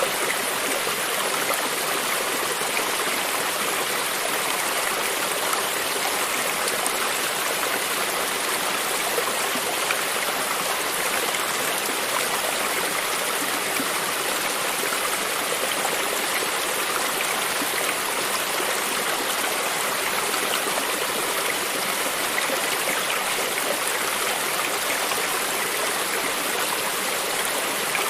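Creek water running steadily over stones, an even, unbroken rush of flowing water.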